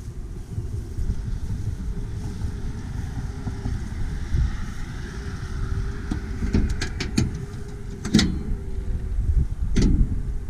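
Wind rumbling on the microphone, then a quick run of metallic clicks and two louder clunks about a second and a half apart as the hood latch of a 1969 Chevrolet pickup is released and the hood is raised.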